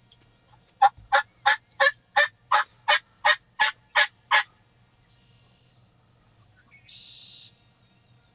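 Wild turkey yelping: a run of eleven loud, evenly spaced yelps, about three a second, starting about a second in.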